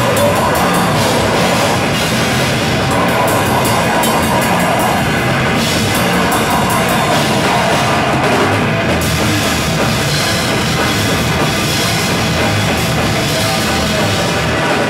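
Live heavy metal band playing loud and without a break: drum kit with fast cymbal hits, bass guitar and amplified guitar in one dense wall of sound.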